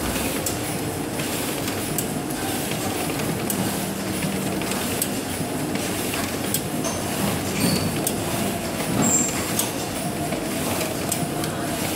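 Duplo eight-bin paper collator running: a steady mechanical clatter with repeated short clicks.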